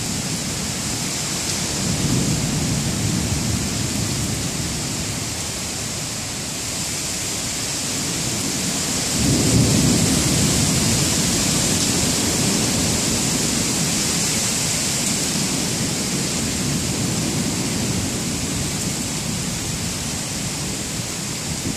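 Thunderstorm: low rolling thunder over a steady hiss. The rumble swells about two seconds in, comes in again more strongly about nine seconds in, then slowly fades.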